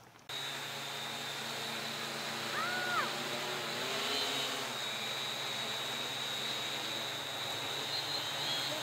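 Multirotor drone's electric motors and propellers whirring steadily in flight, with a thin high motor whine over the rush of the props. The sound starts abruptly.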